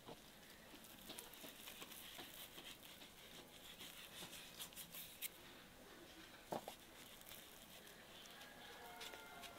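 Faint patter of seasoning grains sprinkled by hand onto a raw rack of lamb ribs on a wooden board, with one sharper tap about six and a half seconds in.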